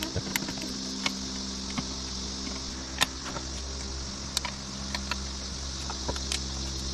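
Scattered sharp clicks and light metal clinks of hand tools and small screws being handled while the motorcycle's gas cap and dummy-tank screws are taken off. They are irregular, a few a second at most, the loudest about three seconds in, over a steady hum and hiss.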